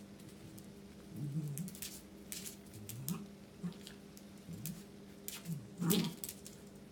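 A Pomeranian sniffing and making several short, low vocal sounds at intervals; the loudest comes about a second before the end.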